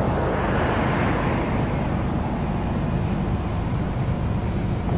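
Diesel locomotives of an approaching freight train, a Canadian Pacific GE ES44AC and AC44CW, running under power as the train pulls out of town: a steady low rumble.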